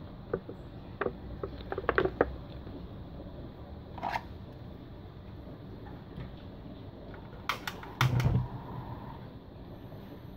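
Clicks of a hand-held gas lighter at a gas hob: scattered clicks early on, then a tight cluster of loud clicks with a brief low thump about three-quarters through, over a steady low background.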